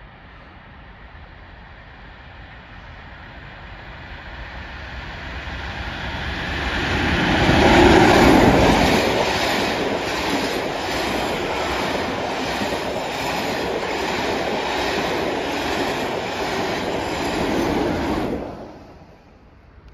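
Loco-hauled passenger train passing at speed over a level crossing. It rises to a loud rush as the front goes by, then the coaches run past with a steady rhythmic clickety-clack of wheels on the rails. The sound drops away quickly near the end.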